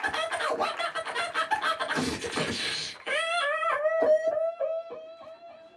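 Beatboxing into a handheld microphone: a fast run of drum-like clicks and snares with a hissing burst about two seconds in, then from about three seconds a pitched vocal tune that steps up and down over the beat, fading near the end.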